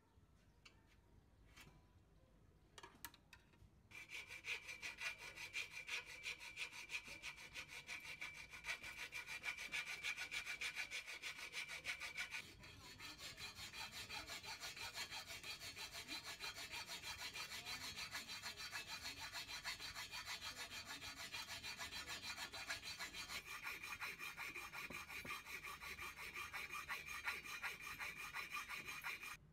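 Hand hacksaw cutting through steel angle iron, with steady rhythmic back-and-forth strokes that begin about four seconds in and run on to the end.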